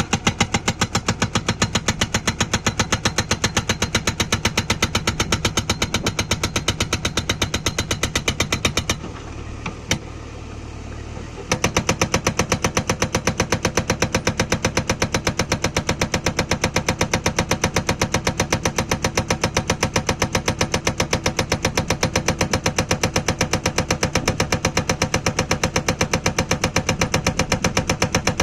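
Hydraulic rock breaker on a JCB backhoe loader hammering hard stone in a rapid, even run of blows. About nine seconds in the hammering stops for a couple of seconds, leaving the machine's engine running and one single knock, then starts again.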